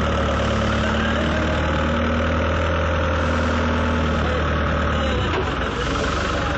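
Forklift engines idling, a steady low hum whose note shifts slightly about five seconds in.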